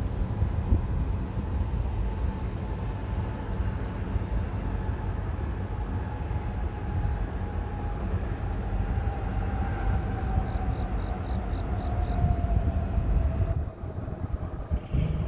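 Steady low rumble of a running vehicle, with a faint tone that slowly falls in pitch; the rumble drops away shortly before the end.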